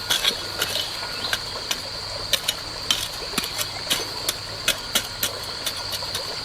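Irregular sharp clicks and taps, about two or three a second, over a steady high-pitched insect drone.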